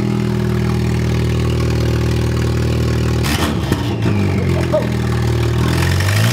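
A VW MK6 Jetta GLI's 2.0 turbocharged four-cylinder runs with its downpipe removed, exhausting straight out of the turbo with nothing restricting it. It idles steadily at first, then turns rough and uneven about three seconds in, and its pitch rises near the end as it is revved.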